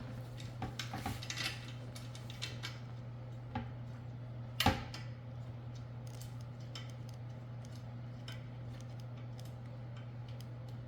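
Small clicks and clinks of mower handle parts and hardware (bolts, washers, wing nuts) being handled during assembly, with one louder sharp knock a little before the middle, over a steady low hum.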